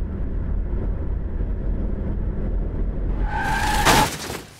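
Car sound effect: steady low engine and road rumble. About three seconds in, a brief tire screech rises, ending in a sharp hit near the four-second mark, then the rumble cuts off.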